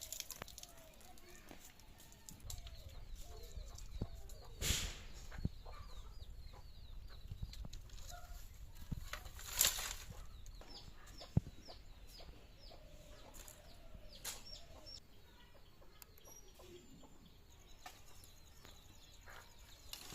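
Chickens clucking, with small birds chirping repeatedly in the background. Two short, loud bursts of noise come about five and ten seconds in.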